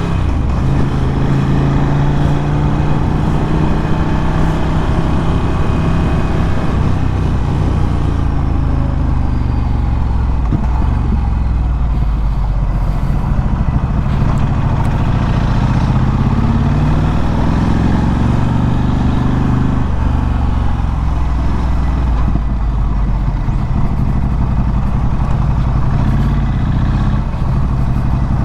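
Ducati Scrambler 1100's air-cooled L-twin engine with a Termignoni exhaust running under way. The pitch falls over the first few seconds, climbs again past the middle, and drops back about two-thirds through.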